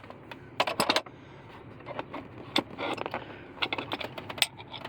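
Metal hand tools being handled and moved about: an irregular run of short clicks, clinks and knocks, with small clusters near the start, the middle and toward the end.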